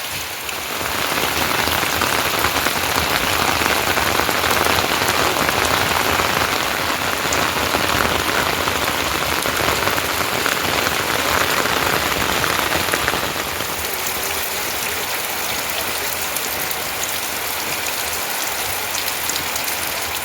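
Steady rain falling, a dense patter of drops. It is heavier for the first dozen or so seconds, then eases a little.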